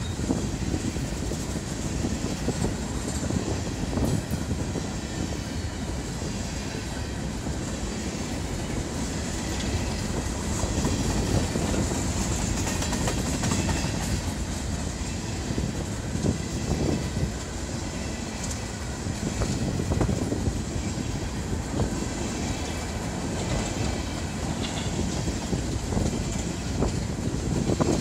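A long train of empty steel coal hopper cars rolling past, a steady rumble and rattle with scattered clacks as the wheels cross the rail joints.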